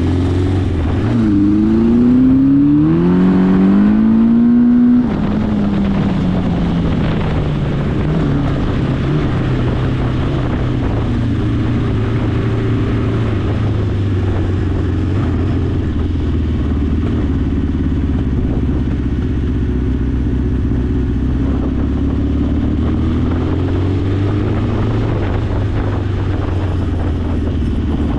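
1981 Honda CB900's inline-four engine revved up in the first few seconds, then dropping back and settling into a steady idle, with one small rise and fall in revs near the end. The throttle opens and returns to idle on a newly fitted throttle cable.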